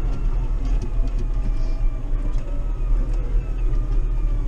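Massey Ferguson 5440 tractor's diesel engine running steadily under way, heard from inside the cab: a heavy, even rumble with a faint whine that drifts slowly down in pitch.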